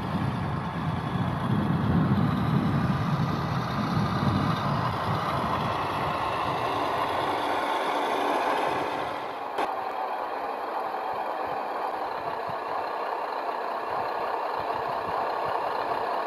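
Large radio-controlled Humvee driving on asphalt: its drive running with tyre noise, heaviest in the first few seconds and then lighter, with one short click just past halfway.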